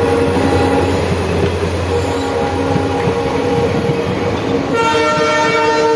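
WDP-4D diesel-electric locomotive with its EMD two-stroke engine droning as it hauls a train, the horn sounding in steady chord tones. The horn notes come and go early on and sound more strongly near the end.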